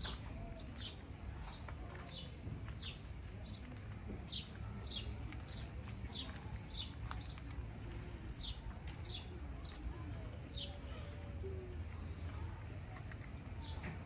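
A small bird chirping repeatedly: short, high, falling chirps about once a second, over a low steady rumble of outdoor background noise.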